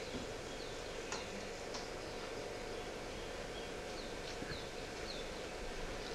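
Steady ambient hiss with faint, short bird-like chirps scattered through it and a few light clicks.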